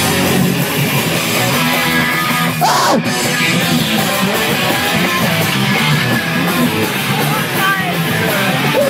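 Punk hardcore band playing live, loud and fast, with distorted electric guitar over a dense wall of sound.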